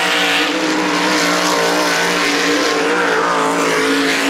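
A 360 winged sprint car's V8 engine running hard on a dirt track, its pitch wavering slightly.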